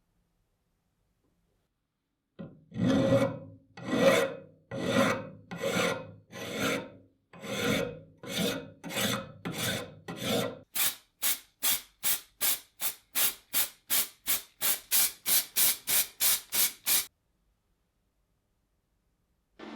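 Hand file rasping on metal in repeated strokes. The strokes are long and slow at first, then from about halfway through they turn short and quick, about three a second, and stop near the end.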